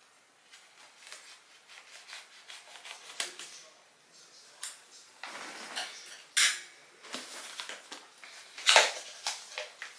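Scissors and hands working at a cardboard product box and its packaging: a run of small clicks and rustles, with two louder bursts of rustling about six and a half and nearly nine seconds in.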